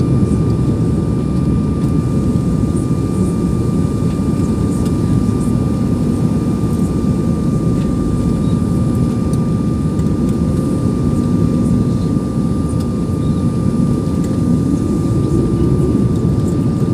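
Steady cabin noise of an airliner descending to land, heard from inside the passenger cabin: a dense engine and airflow rumble with a thin, steady whine above it.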